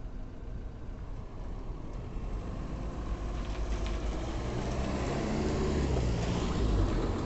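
A motor vehicle's engine running with a low rumble, getting gradually louder toward the end.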